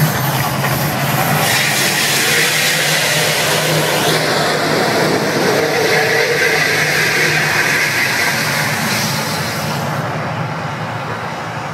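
Eruption effects of the Mirage's man-made volcano show: a steady, loud rush of fire jets and show sound, thinning out and fading from about ten seconds in as the flames die down.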